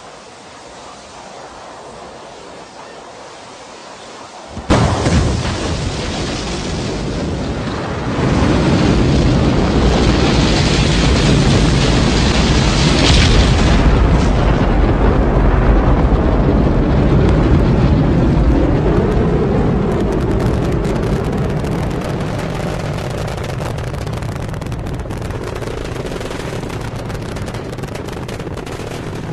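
Rocket launch roar. A steady rising hiss gives way, about five seconds in, to a sudden loud onset. It grows into a deep rumbling roar that swells again around eight seconds in, then slowly fades.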